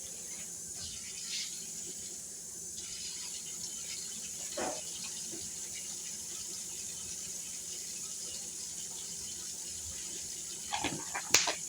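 Kitchen faucet running steadily into a sink while a pan is rinsed, with a few sharp clattering knocks near the end.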